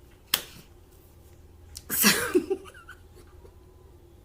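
A single sharp click, then about two seconds in a short breathy burst of a person's voice.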